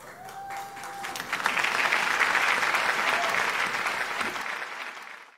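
Audience applauding, swelling over the first two seconds and then tapering off before cutting off abruptly near the end.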